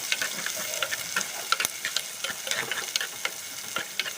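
Ginger, garlic and curry leaves frying in hot oil in a pan: a steady sizzle with many sharp crackles and pops.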